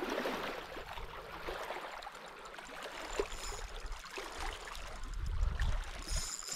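Lake water lapping and trickling, with a few faint clicks.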